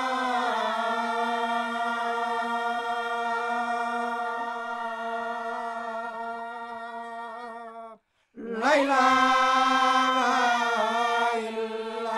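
A woman singing a devotional song in Arabic without accompaniment, holding one long, slightly wavering note for about eight seconds; after a short break she slides up into the next held note.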